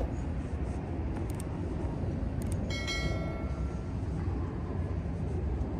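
Steady low outdoor city rumble. About halfway through comes a brief high squeal of several steady tones, lasting about a second, with a couple of sharp clicks just before it.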